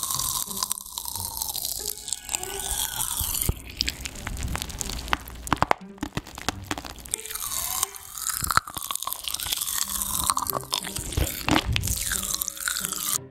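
Popping candy crackling and snapping in an open mouth held right at the microphone: a dense, loud run of sharp pops and fizzing, its tone sweeping up and down.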